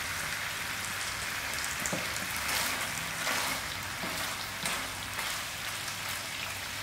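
Chicken giblets frying in a pan: a steady sizzle with scattered crackles and pops.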